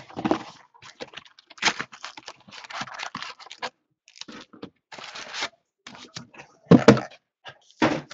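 Cardboard trading-card hobby box being opened and its foil card packs pulled out and stacked: irregular scraping, rustling and light clicks, with a louder thump about seven seconds in.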